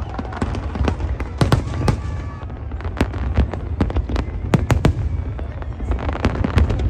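Aerial fireworks barrage: a steady string of sharp bangs and crackles, several a second at times, over a continuous low rumble from the shells bursting overhead.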